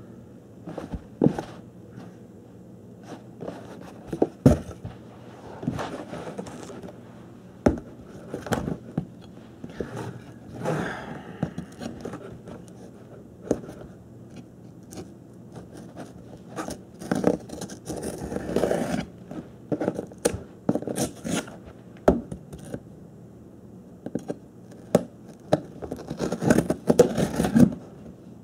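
Cardboard shipping box being cut open with a knife: the blade scrapes and slices through packing tape and cardboard, with irregular sharp knocks and spells of tearing as the box is handled.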